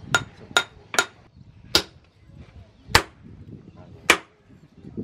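Hand hammer striking a red-hot bearing-steel knife blade on a post anvil: six sharp, ringing metal blows, the first four about two a second, then two more spaced more than a second apart.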